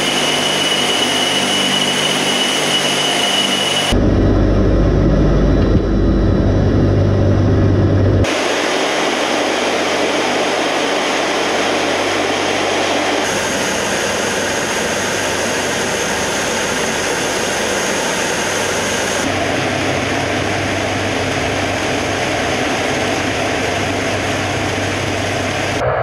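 Tu-95MS turboprop bomber's engines and contra-rotating propellers droning steadily, heard from inside the cabin in the first part. The sound shifts abruptly several times, with a louder, deeper rumble from about 4 to 8 seconds in.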